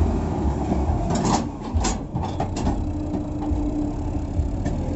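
Sonalika 750 diesel tractor engine running under heavy load as it tows loaded trolleys, with a run of knocks and rattles in the middle and a steady hum coming in a little after halfway.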